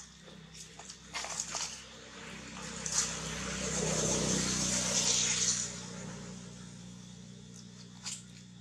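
A vehicle going past, swelling to its loudest about four to five seconds in and then fading away. Dry leaves crackle briefly at the start and near the end as a baby monkey moves in the leaf litter.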